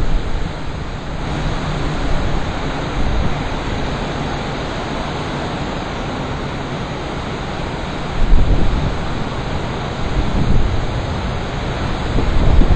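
Strong wind howling across the microphone: a continuous rushing noise, with heavier gusts about eight seconds in and near the end.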